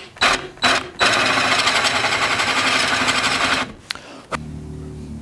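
Drill with a Forstner bit cutting into an end-grain cherry cutting board, squaring the bottom of a shallow recess for a rubber foot: a few short bursts in the first second, then about three seconds of continuous cutting that stops. A steady low hum follows near the end.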